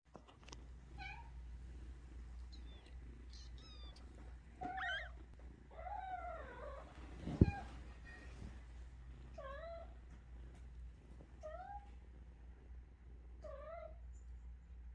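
Young kittens mewing: short, high, rising-and-falling mews repeated every second or two. A single sharp knock about halfway through.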